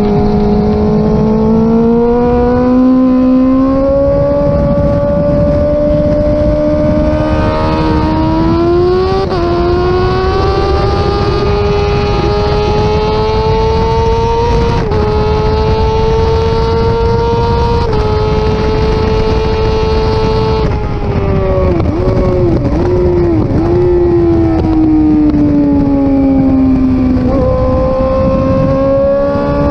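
Suzuki GSX-R600 inline-four engine at high revs on a track lap. It pulls hard through several upshifts, drops with quick blipped downshifts under braking about two-thirds through, then accelerates again near the end.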